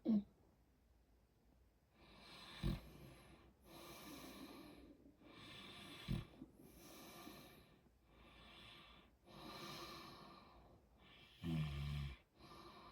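A man drifting off to sleep, breathing heavily with a breath every second or so starting about two seconds in, then a short, low snore near the end. Brief low knocks at the start and about three and six seconds in.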